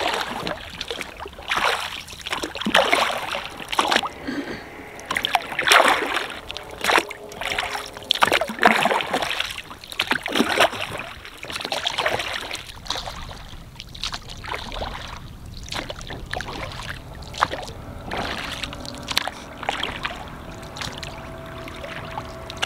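Oars of an inflatable dinghy being rowed through calm water: a splash and swish at each stroke, about every one to two seconds, with dripping between.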